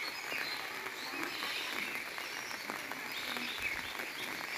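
Rural outdoor ambience: a steady hiss with many small chirping animal calls scattered through it.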